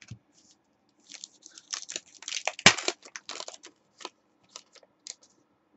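Foil wrapper of a trading-card pack crinkling and tearing as it is opened by hand, a dense run of crackles that is loudest about two and a half seconds in, followed by a few light clicks as the cards are handled.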